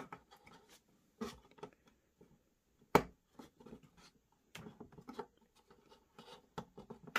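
Fingers working a wire's push-on connector onto a Peco point motor under a wooden baseboard: scattered small clicks and rubbing, with one sharp click about three seconds in the loudest.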